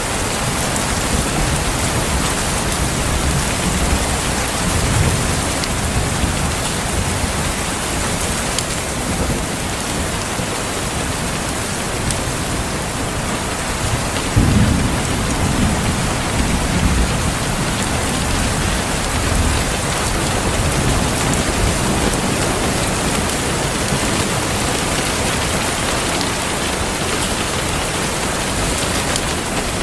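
Steady heavy rain with low rumbles of thunder, the loudest rumble about halfway through.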